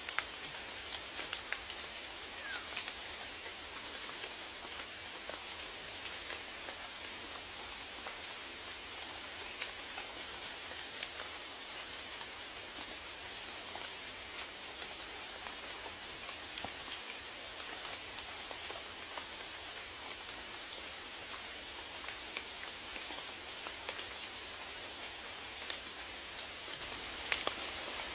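Steady rainfall, an even hiss with scattered individual drops ticking close by.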